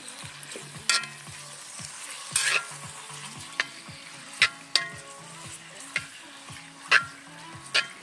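Chunks of meat sizzling in hot oil in a small kazan over wood coals, stirred with a spatula that scrapes and knocks against the pan several times.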